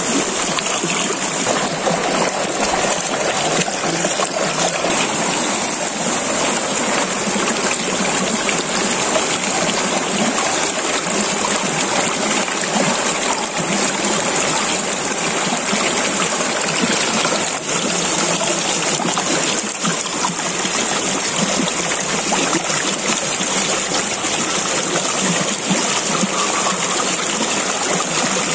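Shallow river rushing over rocks: a steady, even rush of white water.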